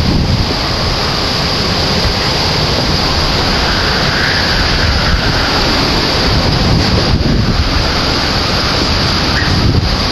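Hurricane-force wind blowing hard across the microphone: a loud, steady rushing roar with a heavy low rumble and small gusty swells.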